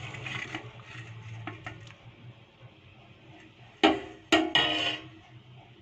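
Fish pieces sliding off a steel plate into curry with a few soft plops, then the steel plate knocked twice against the clay cooking pot. Each clank is sharp and rings briefly.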